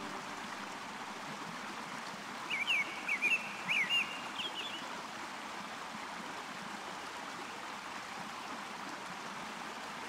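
Steady water-like rushing, as of a running stream, with a burst of quick high chirps, like a small bird's twittering, from about two and a half to five seconds in.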